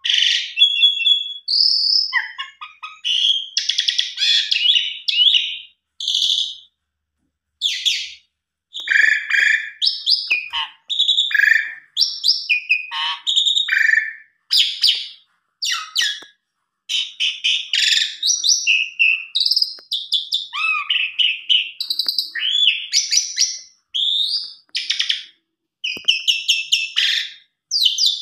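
Asian pied starling (jalak suren) singing a long, varied song of short whistled, gliding and chattering phrases with brief pauses between runs, a full repertoire of fill-in phrases learned from other birds.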